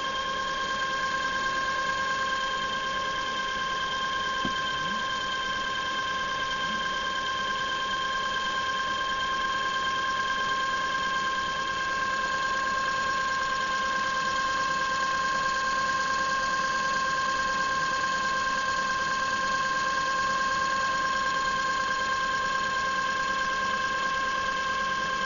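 Industrial electrical discharge machine at work, eroding the workpiece: a steady whine of several constant high tones over a hiss.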